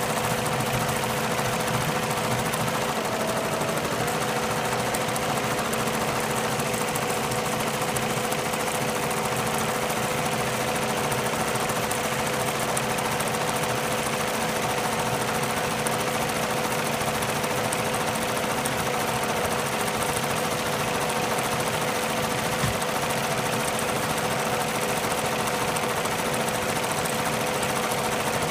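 Embroidery machine stitching: a fast, even mechanical chatter over a constant hum, with no let-up.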